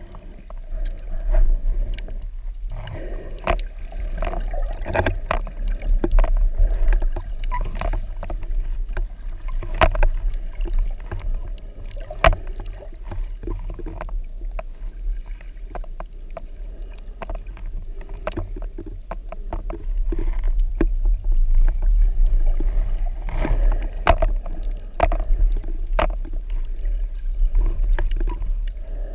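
Water noise heard underwater through a GoPro's waterproof housing: a steady, muffled low rumble with many scattered sharp clicks and knocks.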